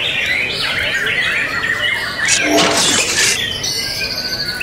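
Many caged songbirds singing at once in dense, overlapping chirps and warbles, white-rumped shamas (murai batu) among them. A louder, noisier call stands out for about a second, about two and a half seconds in, and a rapid high trill follows near the end.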